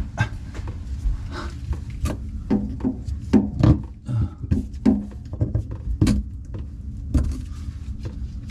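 Hand tools clicking, tapping and scraping irregularly on a stiff part that is wedged in place, as it is worked loose, over a steady low hum.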